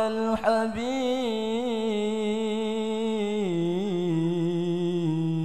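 A man's solo voice chanting an Arabic sholawat a cappella, drawing one syllable out in a long melisma with a wavering, ornamented pitch. The note steps down lower about three and a half seconds in and again near the end.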